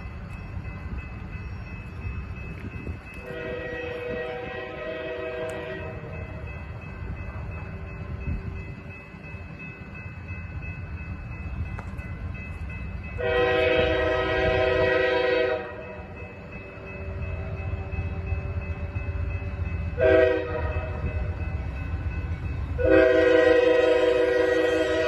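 Horn of the approaching Amtrak Texas Eagle locomotive blowing the grade-crossing signal: long, long, short, long, the blasts getting louder as it nears. A low rumble of the oncoming train runs underneath.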